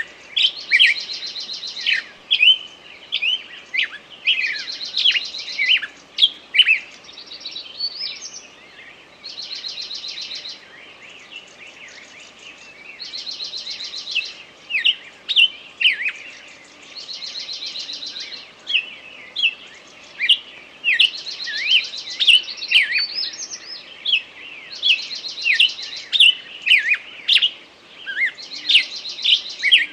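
Forest birds singing: a rapid, even trill about a second and a half long repeats roughly every four seconds, among many short, sharp chirps.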